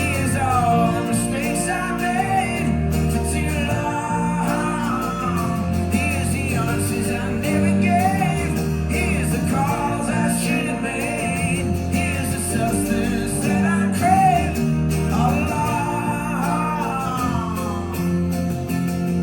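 Live folk-rock band music, with a wordless sung line wavering over sustained bass and guitar chords.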